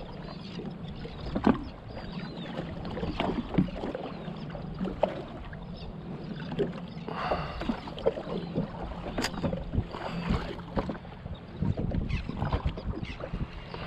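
Small waves slapping and splashing against the hull of a drifting jet ski in irregular short knocks, over a low steady hum.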